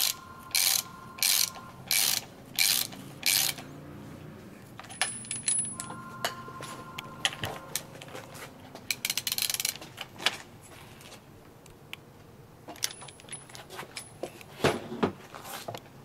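Ratchet wrench clicking in about six quick back-and-forth strokes as the damper-side nut on top of a suspension fork is tightened, followed by fainter, scattered metal clicks and handling knocks.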